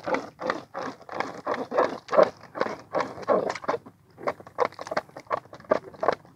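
Fishing hand line being hauled in hand over hand and wound onto a hand spool, making a rhythmic brushing and rubbing about two to three strokes a second, with a short lull about four seconds in.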